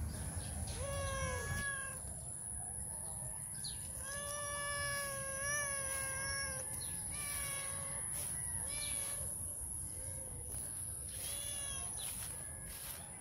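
A hungry stray tabby cat meowing repeatedly to beg for food: about six meows, one drawn out for more than two seconds.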